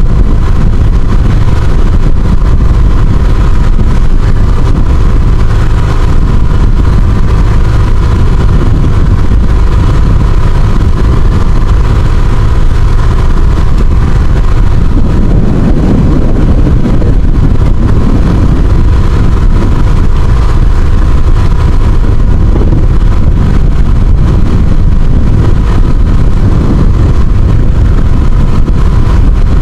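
Motor aboard a small outrigger fishing boat running steadily, a loud, even drone with a thin constant hum above it.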